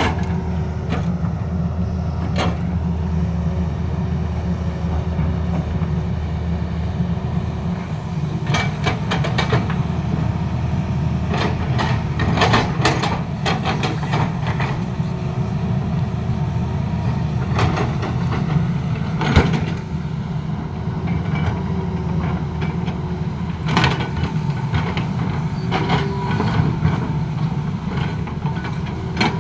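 Tata Hitachi crawler excavator's diesel engine running steadily under load, with scattered clanks and knocks from the steel bucket and tracks as it scrapes and levels soil and rock.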